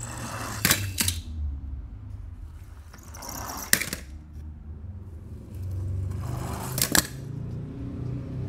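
Small die-cast toy cars knocking and clacking together: about four sharp clacks, each after a short rolling or sliding scrape, over a low steady hum.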